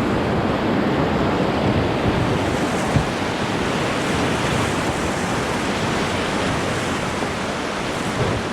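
Steady rush of whitewater rapids, with one short knock about three seconds in.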